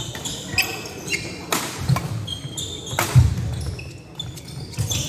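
Badminton doubles rally: sharp racket strikes on the shuttlecock, the loudest about three seconds in, with sports shoes squeaking and stepping on the wooden court floor between strokes.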